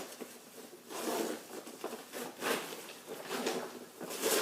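The main-compartment zipper of a Condor 3-day assault pack being pulled open in several short rasping strokes, nylon fabric rustling between them.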